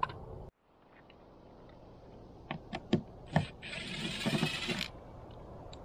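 A few sharp clicks and knocks as the driver bit is set against the gauge faceplate's screws. Then a cordless drill-driver runs for about a second, backing a screw out of the boat's console dash panel.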